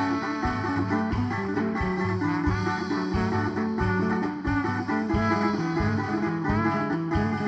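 A band playing an instrumental break in a bumba-meu-boi toada. A guitar plays a melodic lead with bending notes over a bass line and a steady drum beat.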